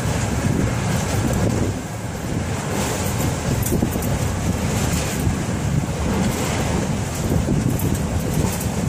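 Wind buffeting the microphone: a steady, ragged low rumble that flickers and swells without a break.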